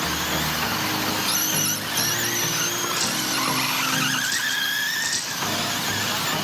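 Electric RC short-course trucks' motors whining, rising and falling in pitch as they speed up and slow down around a track, over background music.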